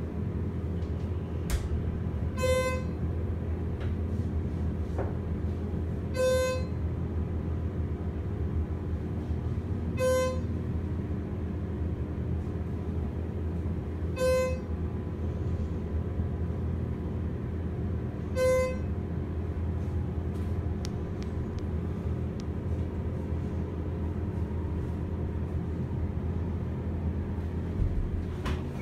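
Schindler 330A hydraulic elevator travelling up, with a steady low hum from the pump and car in motion. A short electronic ding sounds five times, about every four seconds, as the car passes floors.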